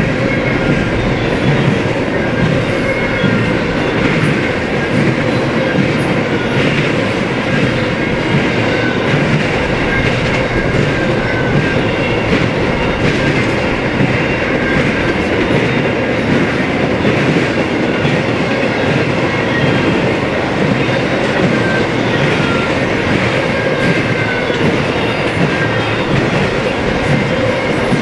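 Freight cars of an intermodal stack train rolling past at steady speed: a continuous rumble with clattering wheels over the rail joints and a few brief, faint wheel squeals.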